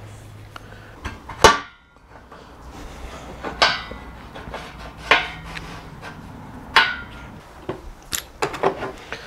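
Sharp metal knocks and clanks as a greased steel bolt is fitted through a motorcycle's suspension linkage and frame: about half a dozen at uneven intervals, the loudest about a second and a half in, with a brief ring.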